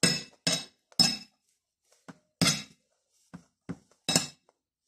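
Metal spoon clinking and scraping against a plate of rice: a series of about seven short, sharp knocks at uneven intervals.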